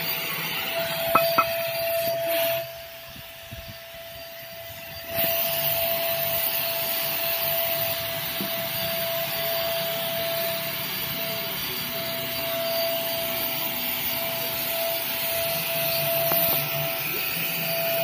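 Handheld electric paint spray gun running: a steady motor whine with the hiss of the spray. It drops away for about two and a half seconds a few seconds in, then comes back, with two sharp clicks about a second in.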